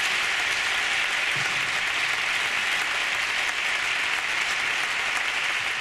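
An audience applauding, a steady even clapping of many hands.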